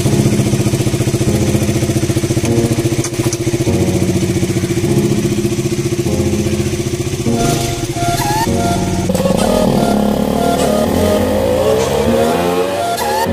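Motorcycle engine running under way, with music faintly underneath; from about nine seconds in the engine's pitch shifts up and down.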